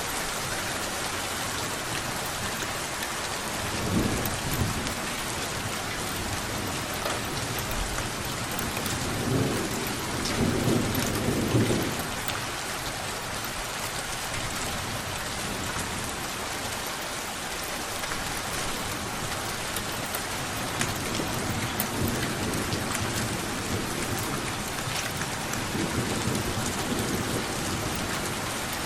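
Steady rain with rolling thunder: a short rumble about four seconds in, a longer one from about nine to twelve seconds, and softer rumbles near the end.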